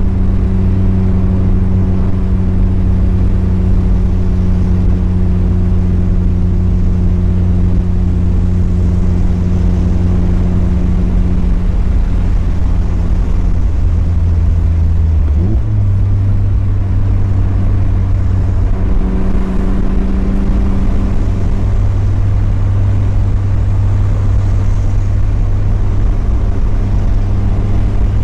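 Mazda Miata's four-cylinder engine and exhaust droning steadily while cruising. About halfway through, the note briefly sweeps up in pitch, then holds a slightly higher steady note as the revs change.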